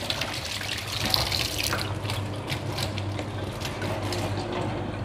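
Water running from a kitchen tap onto mutton brains in a mesh strainer as they are rinsed, with uneven splashing.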